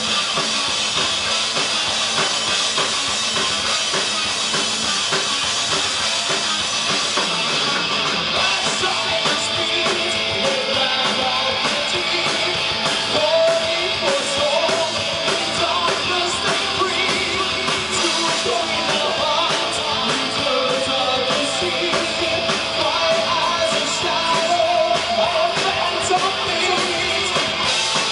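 Heavy metal band playing live: distorted electric guitars and a drum kit, with a singer's vocals over them.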